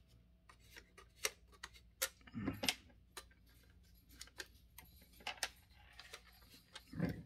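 Faint, irregular small clicks and ticks of a small Phillips screwdriver working tiny screws loose from a diecast model car's display base, with a louder knock about two and a half seconds in.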